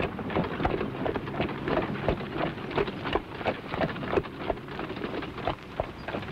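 Horse-drawn cart going by: hooves clopping at a walk, about three or four knocks a second, over a continuous rattle of the wooden cart.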